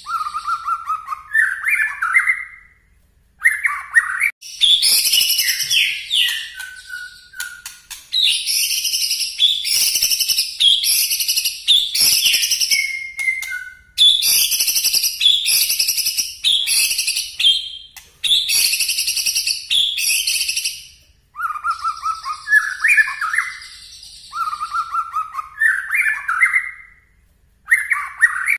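A white-rumped shama (murai batu) sings loud volleys of song, the 'nembak' bursts prized by keepers. Short lower whistled phrases open and close the passage. In between come long, high, rapid-fire phrases of a couple of seconds each, with short breaks between them.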